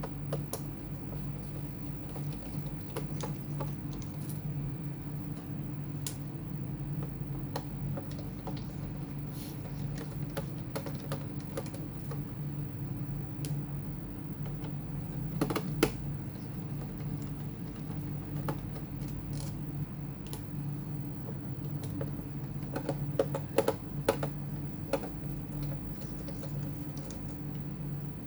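Scattered light clicks and taps from handling a laptop, some in quick little clusters, over a steady low hum.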